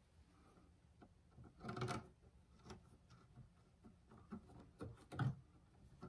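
Faint scraping, rubbing and small clicks of bare copper ground wires being handled and joined at a metal electrical box, with louder rustles about two seconds in and again about five seconds in.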